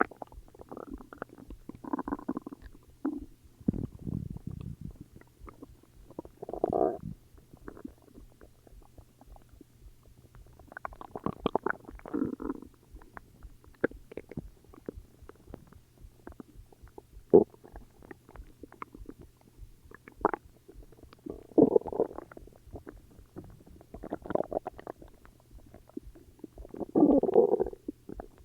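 Human stomach growling: short gurgles and rumbles every few seconds, with a deep low rumble about four seconds in and longer gurgles near the middle and near the end.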